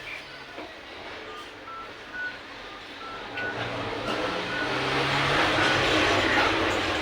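A motor vehicle passing close by, its engine and road noise swelling over a few seconds and starting to fade near the end, with a few short high beeps in the first half.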